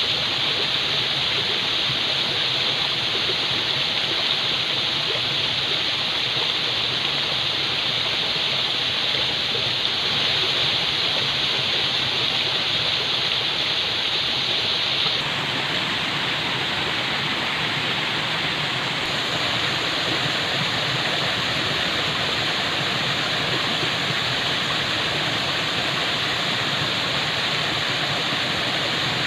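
Falling water rushing steadily, a dense even splashing hiss with no break; about fifteen seconds in it turns very slightly softer and duller.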